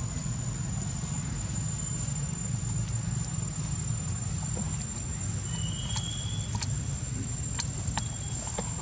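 Outdoor background sound: a steady low rumble with a thin high whine held throughout. A few light, sharp clicks and crackles, such as dry leaves being handled, come in the second half, along with a brief high tone a little past halfway.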